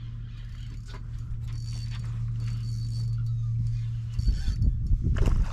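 Spinning fishing reel cranked in short spells, a high gear whir, while a hooked fish is fought on rod and line. A steady low hum runs underneath, and irregular low thumps come in the last second or so.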